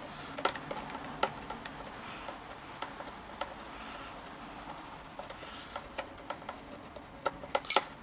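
Screwdriver working the screws of the metal cutter housing on a Silca key machine: scattered light metallic clicks and ticks, with a quick cluster of sharper clicks near the end.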